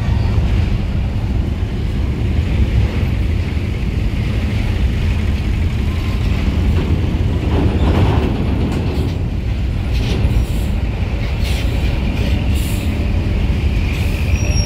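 Heavy diesel bus engine running close by with a loud, steady low rumble as buses pull off a ferry's vehicle deck, with a few short hisses in the second half.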